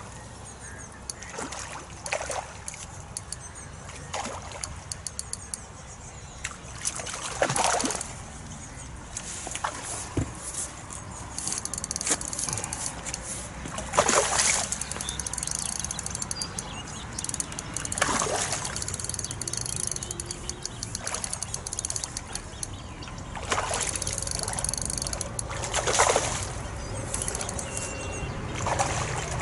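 A hooked tench splashing and thrashing at the surface while it is played on a rod, giving repeated sudden splashes, the loudest about halfway through. Bursts of rapid ticking come in between the splashes.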